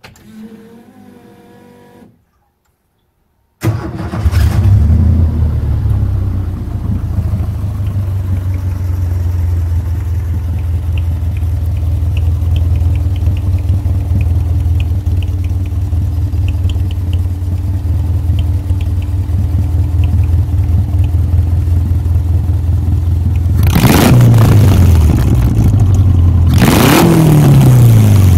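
Subaru 2.2-litre flat-four engine in a VW buggy starting on the key after a faint whine and a short pause, catching suddenly and settling into a steady idle through a loud exhaust. Near the end it is revved up twice and drops back.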